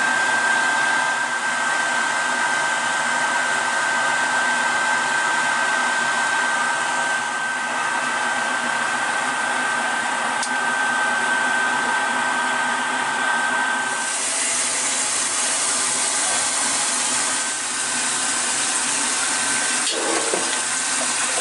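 A steady whir with a constant high whine runs throughout. About two-thirds of the way through, a kitchen tap starts running water into a plastic bowl of pork pancreas being rinsed.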